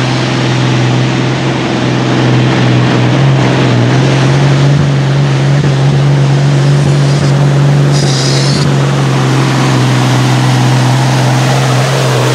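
A modified pulling tractor's engine running at full throttle under load during a pull, holding one steady note.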